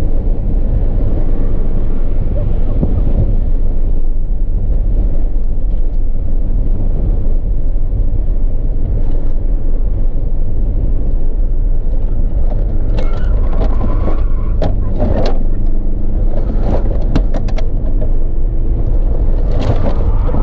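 Car engine and road noise heard from inside the cabin while driving: a steady low drone. From about two-thirds of the way through come a run of short sharp clicks and knocks.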